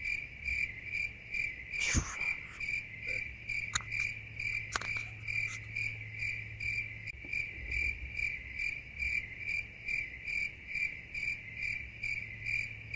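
Crickets chirping, a steady high ringing chirp repeating about twice a second, with a low steady hum underneath. A single sharp knock about two seconds in, and a couple of faint clicks soon after.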